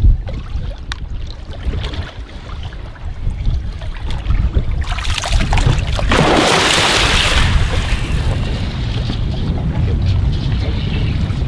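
Wind buffeting the microphone and water washing against a drifting fishing boat's hull, with a steady low rumble. About five seconds in a louder rushing hiss swells up for a couple of seconds, then dies back.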